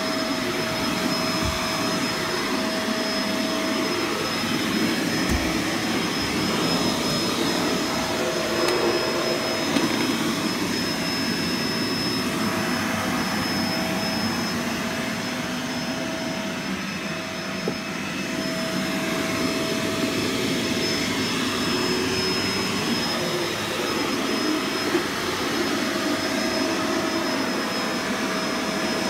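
Upright-style household vacuum cleaner running steadily: a constant rush of air with a steady motor whine on top, easing slightly for a moment about two-thirds of the way through.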